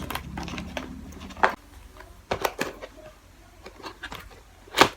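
Cardboard packaging of a ring light being handled and opened: scattered clicks and knocks, the loudest just before the end.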